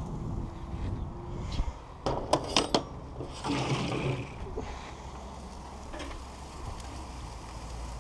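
Metal barbecue utensils striking a stainless steel tray: a quick run of sharp clinks about two seconds in, followed by a second or so of clattering and scraping against the metal.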